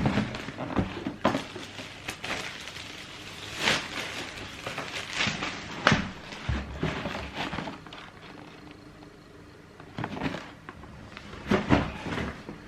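A cardboard trainer box and its contents being handled: scattered knocks, thuds and short rustles.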